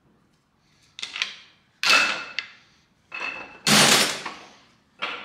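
Sharp metal-on-metal strikes ringing out, four of them about a second apart with the second and fourth loudest, and another starting near the end, as a camshaft jammed by broken connecting-rod pieces is worked free of an LS2 engine block.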